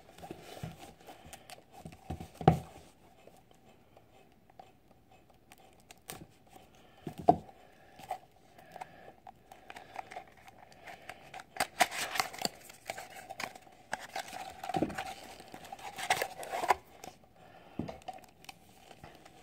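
Plastic wrapping of a trading card box and its packs crinkling and tearing as it is handled and opened, in irregular bursts with a few sharp clicks; the crinkling is thickest about twelve seconds in and again around sixteen seconds.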